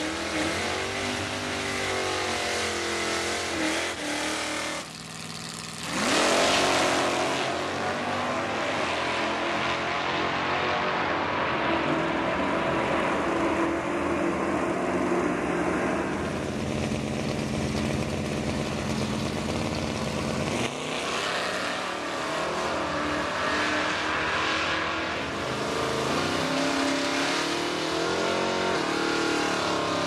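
1960s Mopar V8 drag cars. Engines are revved at the starting line, then one launches hard about six seconds in, its engine note climbing as it pulls away. From about twenty seconds on, engines rumble and rise again as the next pair sits at the line.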